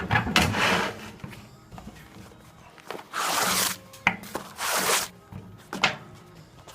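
Magnetic drill cutting a hole in steel plate: several short bursts of harsh cutting noise over a low steady hum, with a sharp click near the end.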